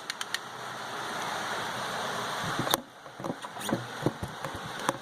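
A steady rushing noise, like wind on the microphone, that cuts off with a sharp click about two and a half seconds in, followed by scattered light clicks and knocks of hand tools and parts being handled.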